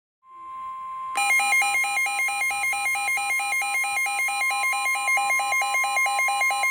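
NOAA Weather Radio warning alert tone: a steady high tone that starts a moment in. About a second in, a Midland WR120 weather radio's own alarm joins it, beeping in a fast two-pitch alternation about four times a second. The alarm signals a newly issued severe thunderstorm warning.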